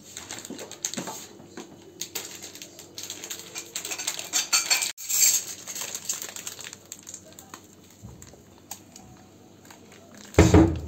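Metal spoons and dishes clinking against one another on a serving tray in a run of light clinks, busiest around the middle. A single heavier thump near the end.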